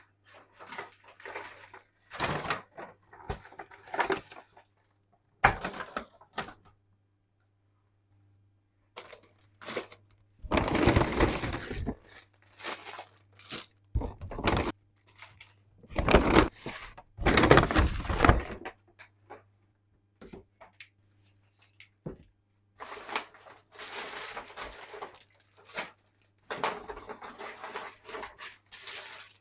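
Objects being handled and set down: irregular knocks and thunks mixed with rustling, in loose bursts, the loudest stretches about ten to twelve and sixteen to eighteen seconds in.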